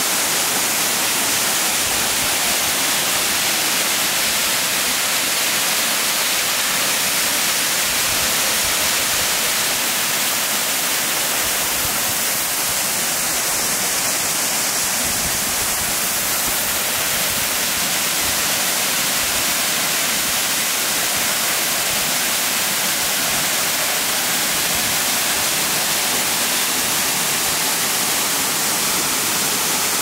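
Yamabiko Falls, a tall waterfall pouring down a rock cliff onto rocks, making a loud, steady hiss of falling and splashing water.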